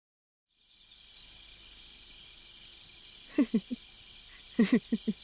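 Night ambience fading in: a cricket trilling in stretches of about a second with short gaps, and two quick runs of frog croaks in the second half.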